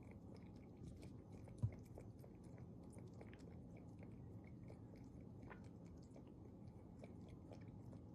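Faint, close chewing with a steady run of small crunching clicks, and a single low thump about one and a half seconds in.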